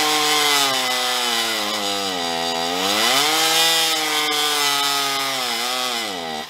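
Stihl MS460 two-stroke chainsaw with a poorly ported cylinder and an expansion-chamber pipe, run at full throttle on a chainsaw dyno. The engine speed sags under the dyno's brake load about two seconds in, climbs back, dips again near the end, then cuts off abruptly.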